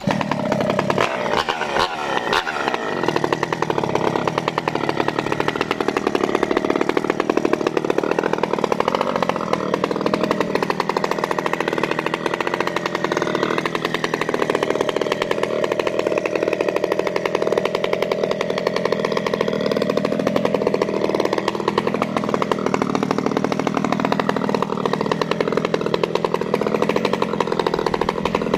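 Maestro mini chainsaw running at high speed, revving hard in the first few seconds and then sawing through a standing tree trunk near its base, its pitch wavering as the chain works through the wood.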